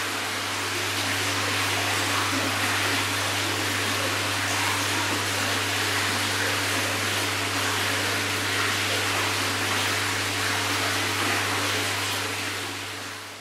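Steady hiss of koi tank equipment, pumps and aeration, with a constant low hum under it; it fades down near the end.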